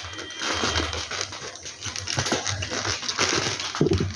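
A hand mixing flour-dusted parboiled potato batons in a stainless-steel bowl: irregular rustling, with the pieces knocking lightly against the steel.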